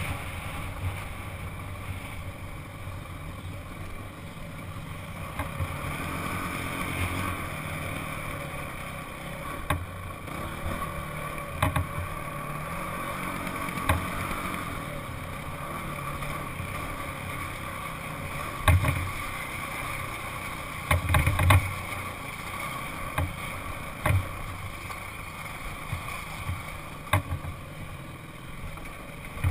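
Honda CRF dirt bike engine running steadily at moderate revs while riding over rock, with wind on the helmet-mounted microphone. Several sharp knocks break through, a cluster of them about two-thirds of the way through.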